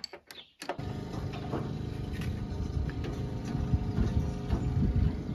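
A few metal clicks from a wrench on a combine sprocket nut. Then, abruptly, a steady engine runs with scattered knocks over it.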